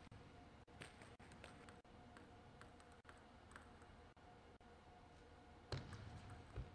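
Near silence in a large hall between table tennis rallies: faint scattered clicks and taps over a low steady hum, then a few louder low thumps near the end.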